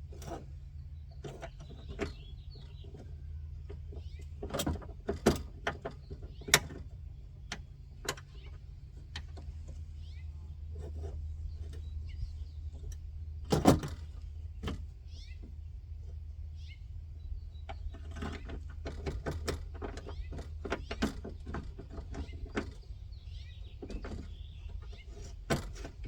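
Scattered clicks and knocks of a car window regulator's metal parts and bolts against the inner door panel as it is fitted into the door, the loudest knock about halfway through, over a steady low hum.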